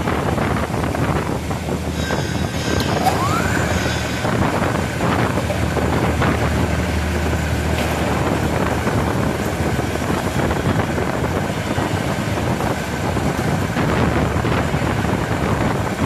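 Radial drilling machine running in a busy machine shop: a loud, steady mechanical din with a low hum underneath, and a brief rising whine about three seconds in.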